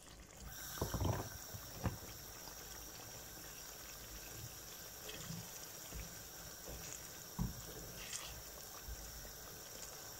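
A wooden spatula stirs a thick, watery dates pickle in a pan, with a few soft knocks against the pan, over a faint steady hiss.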